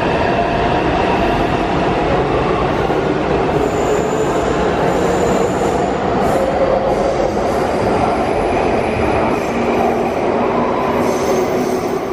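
Taipei Metro train running along an underground station platform: a loud, steady rumble of wheels on rail, with thin high wheel squeals around the middle.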